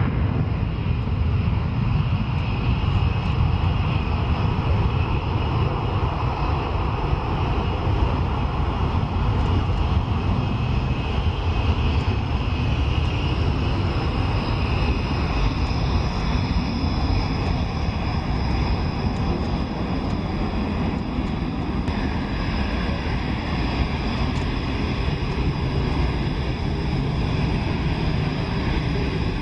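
Panavia Tornado jets' twin RB199 turbofans: a steady, loud jet roar from an afterburning take-off run, with a high turbine whine that grows stronger in the second half as another Tornado taxis close by.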